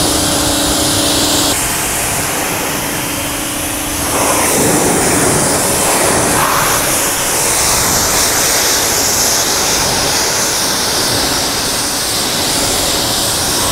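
Active 2.0 pressure washer running, its high-pressure jet spraying foam off a car: a steady motor hum under a loud hiss of spray, the hum fading into the spray about four seconds in.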